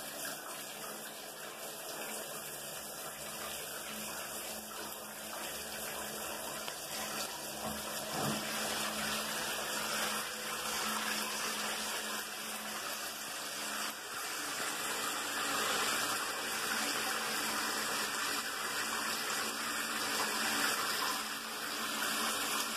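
Showerhead spraying water in a steady stream, running at full flow with its flow restrictor removed to raise the pressure.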